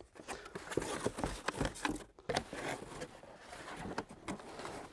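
Cardboard shipping box being handled: its flaps folded shut and the lid closed, with irregular rustles, scrapes and light knocks.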